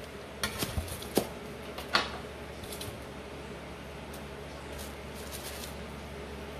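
Light snaps and clicks of stems being pinched off long green chili peppers by hand, several in the first two seconds, over a steady low hum.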